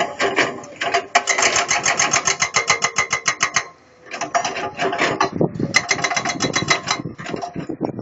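Komatsu PC210LC excavator's diesel engine running under load, heard as a loud, rapid, even clatter. The sound drops out briefly just before the midpoint and then resumes.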